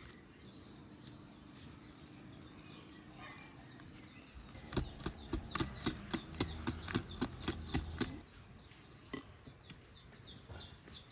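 Wire whisk clinking against a glass mixing bowl while stirring raspberries into cake batter: a quick run of sharp clicks, about five a second, for some three seconds in the middle.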